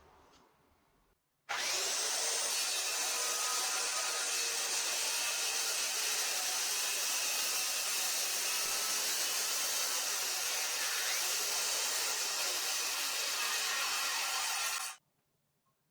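Electric jigsaw cutting wood in one steady run, starting abruptly about a second and a half in and stopping abruptly near the end.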